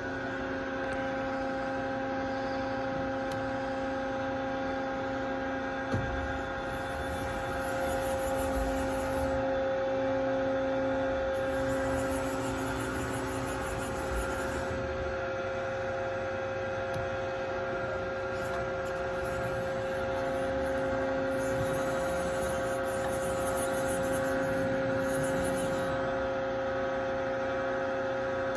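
Hurco TM10 CNC turning center running under power: a steady electric hum and whine made of several held tones, with a faint high hiss coming and going.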